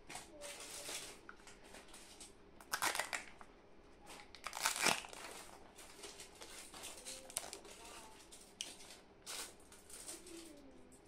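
Crinkling and crackling plastic as a plastic surprise-candy capsule is opened by hand and the clear seal is peeled off its cup, with two sharper, louder crackles about three and five seconds in.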